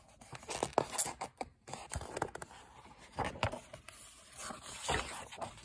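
Irregular handling noises: scraping and rustling with a few short clicks and knocks, as objects and the recording phone are moved about at close range.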